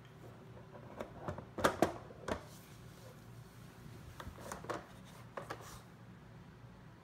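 Plastic boxes of a Trixie Activity Poker Box dog treat puzzle clicking, knocking and scraping as a beagle puppy noses and paws at them. The loudest knocks come about two seconds in, with more around four to six seconds.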